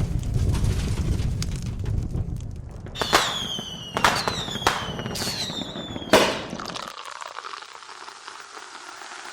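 A low rumble, then four sharp cracks about a second apart, each trailed by a short whine that falls slightly in pitch, like gunshot ricochets or firecrackers; a faint hiss follows.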